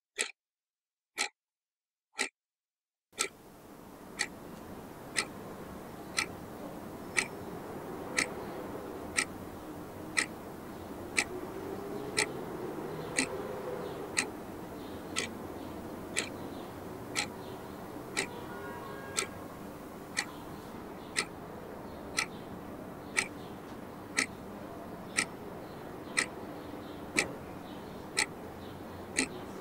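Clock ticking steadily, about one tick a second. A low steady background fades in about three seconds in.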